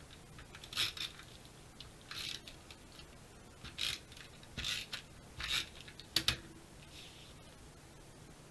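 Stampin' Up! Snail adhesive tape runner drawn across card stock in about six short strokes, each a brief scratchy zip, with a sharp click about six seconds in.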